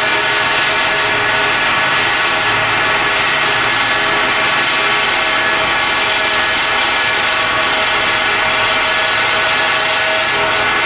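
Pneumatic air hammer with a tube-beading tool hammering steadily without a break against the ends of steam-locomotive boiler tubes, rolling the tube ends over onto the tube sheet so they act as stays against boiler pressure.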